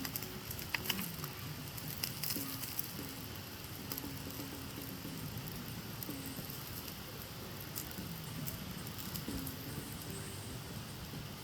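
Crackling and popping of a cooking fire over a steady sizzling hiss, with sharp pops clustered in the first few seconds. A low tone recurs and slides downward every second or two.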